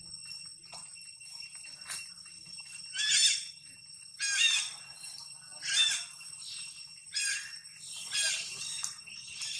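A series of short, high-pitched animal calls, about six in all, coming roughly every second to second and a half, over a steady high ringing drone.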